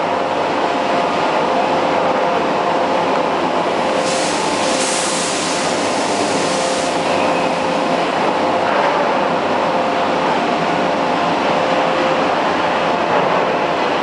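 Steady machinery drone with several steady tones from the hydraulic forging hammer's plant, and a loud hiss from about four to seven seconds in. No hammer blows are heard.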